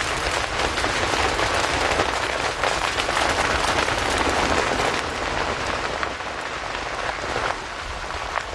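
Sugarcane field burning: flames crackling through the cane stalks in a dense, steady rush of pops and snaps. It eases off a little near the end.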